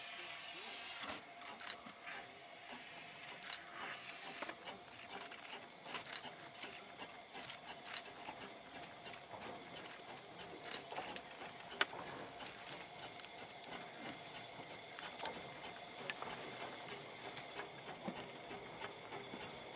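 Small narrow-gauge steam locomotive moving slowly forward, faint: a steady hiss of steam with many irregular light clicks and clanks.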